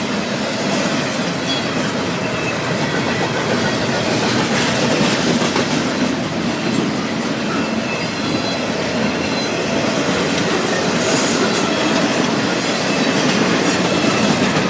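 Norfolk Southern freight train's cars rolling past, a steady loud rumble of steel wheels on rail with clacking over the joints. High-pitched wheel squeals come and go in the last few seconds.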